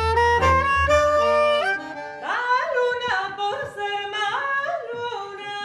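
Instrumental music with a bass line ends about two seconds in, and a woman's solo voice takes over, singing long held notes that slide up into each pitch, with no other instrument heard under it.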